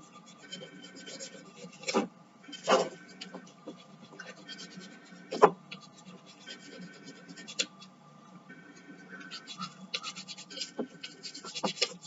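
Nail file rasping in quick strokes along the edge of a cast resin pendant, smoothing the sharp edge, with a few louder knocks in the first half.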